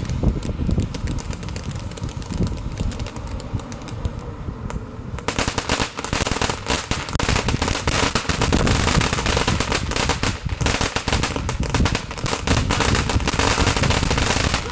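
Ground fireworks going off: a rapid, dense crackle of many small bangs that starts about five seconds in and keeps going, after a quieter opening stretch.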